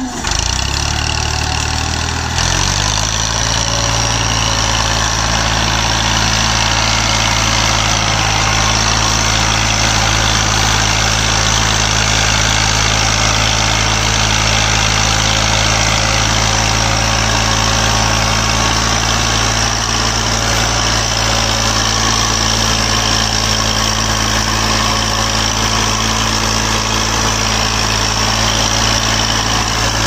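Massey Ferguson 240 tractor's three-cylinder diesel engine hauling a heavily loaded sugarcane trolley. It rises in revs over the first couple of seconds, then runs steadily under the load.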